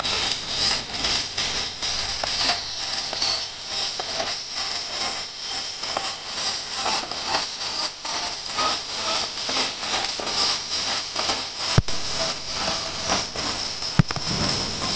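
Aerial fireworks bursting: a dense, continuous crackling from crackle shells, with two sharp bangs a couple of seconds apart near the end.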